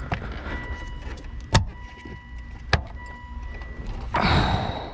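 Hard plastic clicks and snaps from the gear shifter assembly being handled, with two sharp clicks about a second and a half in and near the middle, then a brief scraping rattle near the end.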